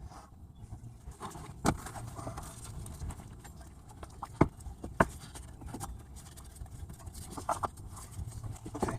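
Scattered clicks and knocks of hand work in an engine bay while a new serpentine belt is routed over the pulleys, with two sharper knocks about halfway through.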